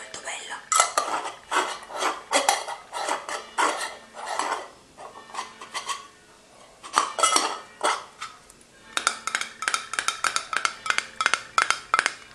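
Fingernails tapping and scratching on a glass jar candle in quick runs of clicks, with a pause about halfway and the fastest tapping near the end.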